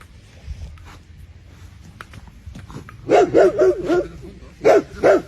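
Dog barking excitedly: a quick run of about four barks some three seconds in, then two more near the end.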